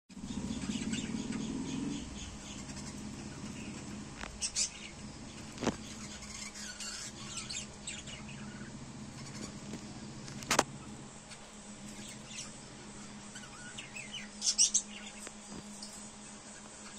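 Peach-faced lovebirds chirping in short high bursts, three clusters of calls, over a steady low hum, with two sharp clicks in between.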